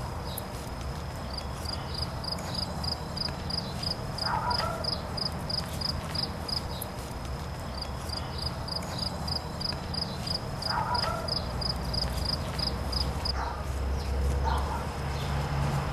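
Outdoor summer ambience: an insect's high, steady trill pulsing about four times a second, pausing briefly in the middle. Under it runs a low steady rumble, and a few short chirps come through.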